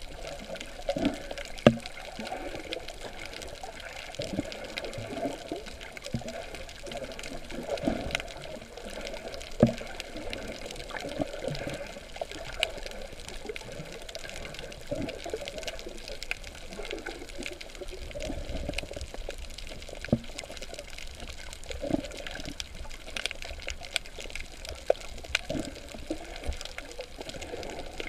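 Water sloshing and bubbling around a snorkeler's underwater camera, with irregular gurgles and a few sharp knocks.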